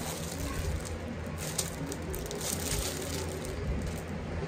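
Plastic wrapping crinkling in scattered light crackles as a shrink-wrapped plastic dish drying mat is handled and turned over, over a low steady room hum.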